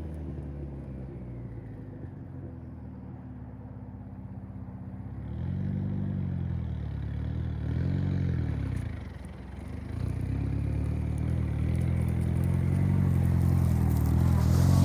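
Turbocharged Datsun 720 pickup's engine under throttle while the rear wheels are spun to test a newly fitted limited-slip differential. The revs rise and fall twice in quick succession about six and eight seconds in, drop off briefly, then build again and hold higher.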